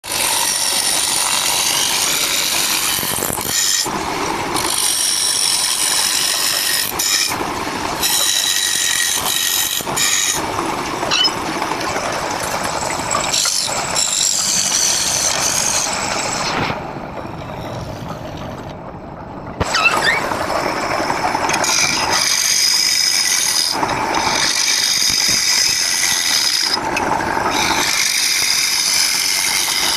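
Power tool cutting wood: a high whine over noisy cutting, in passes that break off and restart every few seconds, easing off briefly about two-thirds of the way through.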